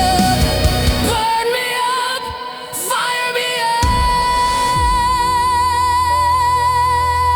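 Rock song with singing. The drums and bass drop out about a second in and come back a few seconds later, under a long held high sung note that ends near the close.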